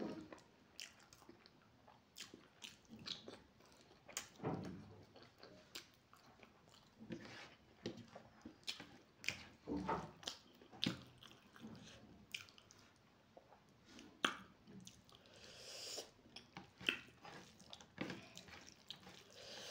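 Close-up mouth sounds of a person chewing a mouthful of rice and egg curry eaten by hand, with irregular wet smacks and clicks. Fingers mix rice on the plate between mouthfuls.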